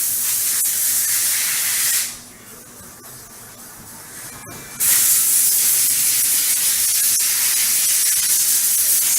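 Loud, steady hissing spray from the Mikron VCE 1600 vertical machining centre. It drops away about two seconds in and cuts back in abruptly a little before five seconds.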